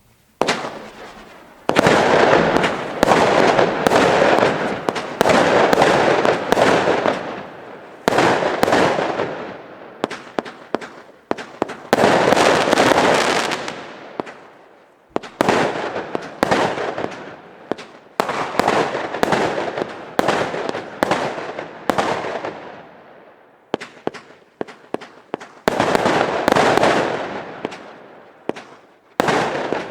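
Weco Black Ice firework battery firing: volleys of sharp shots in quick succession, each followed by a fading hiss of bursting effects, with brief lulls between volleys.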